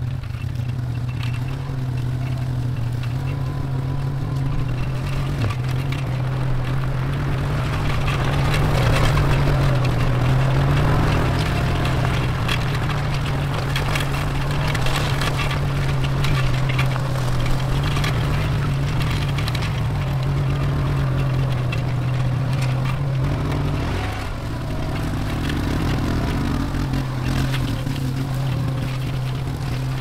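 ATV engine running steadily while towing a homemade log-skidder arch loaded with a pine log. Its pitch rises slightly around the middle and dips briefly near the end.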